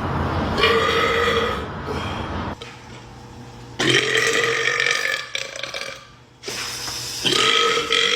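A man burping three times, each a long drawn-out belch, spread a few seconds apart.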